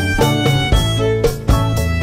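Instrumental background music, a violin melody over a steady beat.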